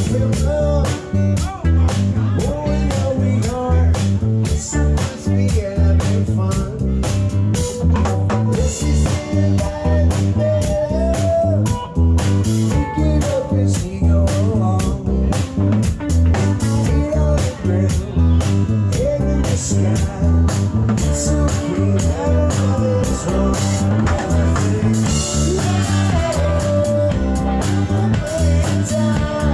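Live band playing: drum kit keeping a steady beat under electric bass and guitars, with a melody line bending up and down on top.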